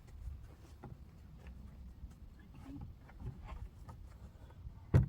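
Wooden chicken-coop panels being handled: scattered faint knocks and taps over a low rumble, then one sharp, loud knock near the end.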